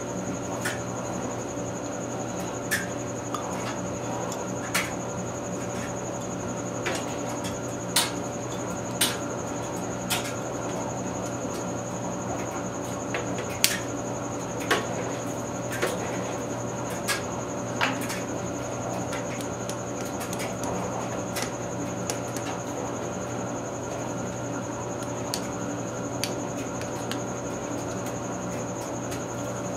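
Light clicks and taps of small metal engine parts being handled, about one a second at first and sparser later, over a steady hum.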